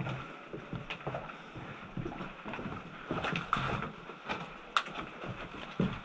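A player's footsteps scuffing and stepping on gritty concrete stairs and floor, irregular and uneven, with rustling of gear and clothing and a few sharper knocks.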